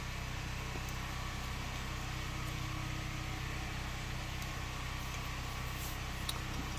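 Steady low hum with a few faint clicks near the end.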